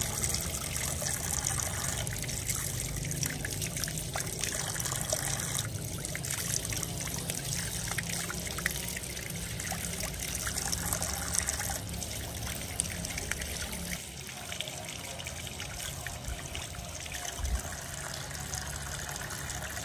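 Water running from an outdoor tap in a steady stream and splashing over hands and a baby monkey held under it as it is washed, with small splashes throughout.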